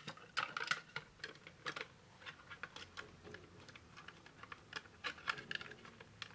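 Irregular light clicks and taps of hard plastic as a Play Arts action figure is handled and pressed onto its display base, a quick cluster in the first second and more about five seconds in.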